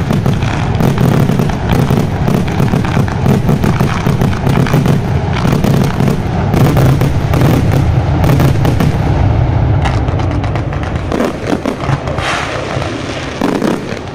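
Fireworks display: dense, rapid bangs and crackles overlapping into a continuous barrage with a deep rumble, thinning out a little after about ten seconds.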